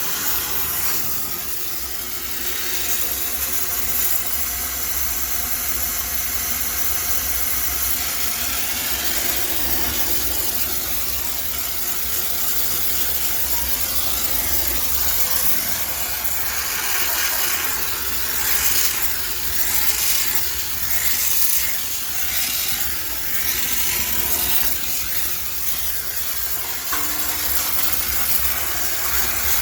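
High-pressure steam cleaner jetting steam with a steady hiss over a low hum, sterilizing a washing machine.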